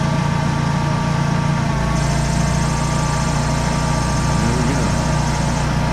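Generac Guardian 16kW standby generator engine running steadily, seconds after starting automatically on a power loss. About two seconds in, its low hum grows stronger.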